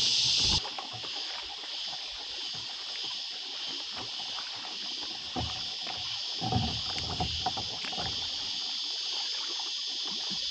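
Steady high-pitched drone of cicadas in the shoreline bush, with water lapping at a kayak hull. A few soft knocks and rustles from the kayak about six to seven seconds in.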